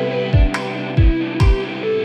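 Background music: a guitar track over a drum beat, the kick drum hitting three times.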